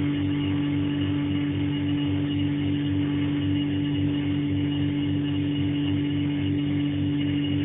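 Refrigerator compressor running with a loud, steady hum: one strong tone over a low, rapid pulsing throb.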